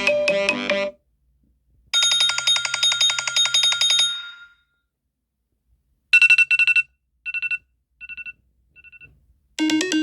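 iPhone ringtones and alert tones played one after another. A melodic tone ends just under a second in. A rapid trill of pulses follows for about two seconds. Then a short beeping figure repeats four times, each repeat quieter, and near the end a new melodic tone begins.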